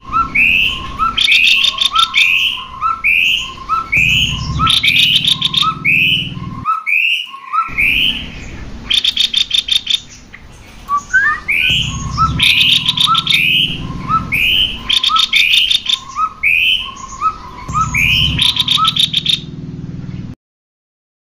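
Cucak kopi birds calling, packing short chattering phrases close together with quick high trills. The calling breaks off briefly about a third of the way through, then cuts off suddenly near the end.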